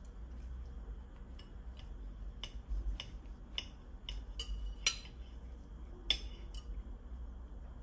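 Metal knives and forks clinking and scraping against plates as rolled crepes are cut, in irregular sharp clinks, the loudest about five and six seconds in, over a low steady rumble.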